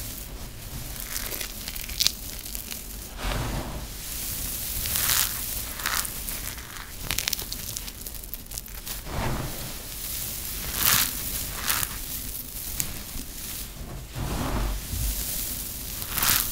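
Hands scooping and squeezing a heap of dry crumbled soap, the crumbs crunching and rustling steadily, with sharper crunches now and then as handfuls are pressed into balls.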